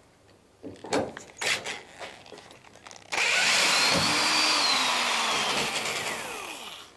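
Cordless drill-driver running for about four seconds, undoing a screw in the timber brace that holds the boat to its strongback; its whine sinks as it slows and stops near the end. A few light knocks come first.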